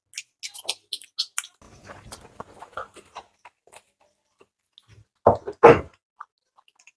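Close-up eating sounds: wet mouth clicks and smacks while chewing flatbread and curry, with some soft rustling. Two short, louder sounds come a little past halfway.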